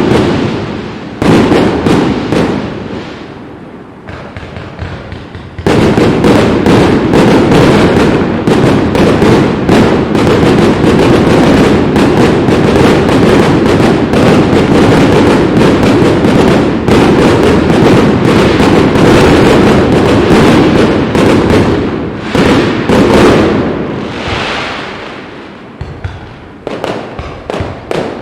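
Fireworks display: after a short lull, a dense non-stop barrage of shell bursts starts about six seconds in and runs to about twenty-two seconds. It then thins out, and a few more bursts come near the end.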